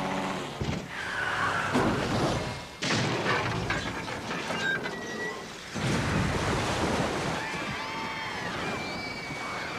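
Cartoon sound effects of a water tower bursting: a run of loud crashes and rushing, gushing noise over the first six seconds or so. Repeated high wavering cries follow later on.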